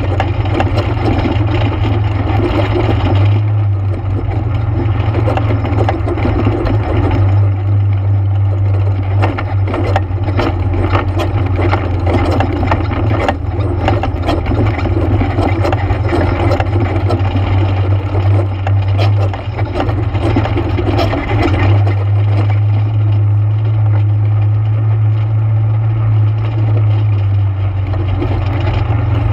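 ATV engine running steadily under way, with a spell of clicks and rattles from about eight to fourteen seconds in.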